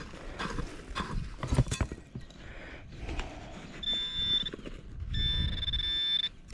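A few sharp knocks and scrapes in the first two seconds. Then a metal detector gives a high, steady electronic tone twice, once briefly and once for over a second, as it signals a buried metal target.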